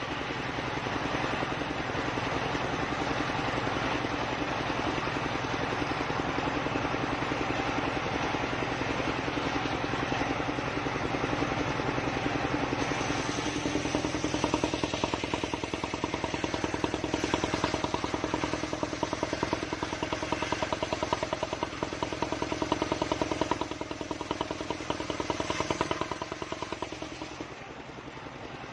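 A homemade circular-saw bench driven by an engine runs steadily with a fast, even pulse. About halfway through, a steadier higher tone sets in over the engine note and holds until near the end.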